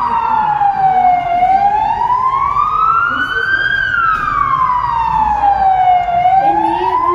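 Police car siren in a slow wail: the tone falls, rises over about two and a half seconds, falls again and starts to rise once more, about one full rise and fall every five seconds.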